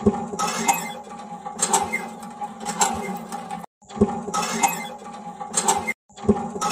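Water pouring from a miniature hand pump's spout into a steel bowl, over a steady hum, with a sharp metallic clink about once a second. The sound cuts out abruptly twice.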